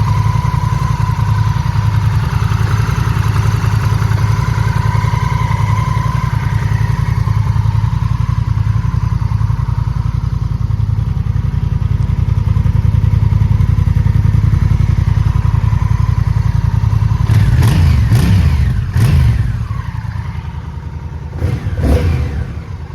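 Honda Rebel 1100 DCT motorcycle's parallel-twin engine idling steadily, then several short, sharp bursts of sound in the last few seconds, after which it runs quieter.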